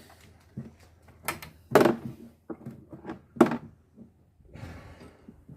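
A handful of sharp knocks and clunks from hand tools and brake parts being handled during a brake pad change, the loudest two about two seconds and three and a half seconds in, followed by a short scraping rustle near the end.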